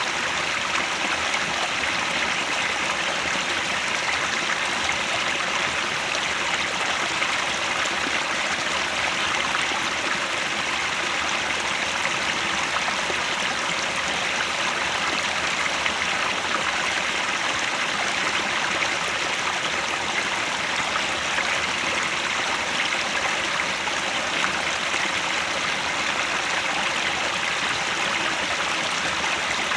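Headwater stream running, a steady, even rush of flowing water.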